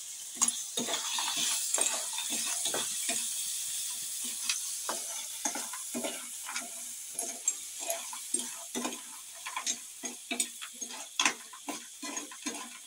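Freshwater snails in their shells sizzling in a hot frying pan while being stirred with a metal spoon: a steady sizzle, with frequent scrapes and clicks of the spoon and shells against the pan. The sizzle eases a little in the second half.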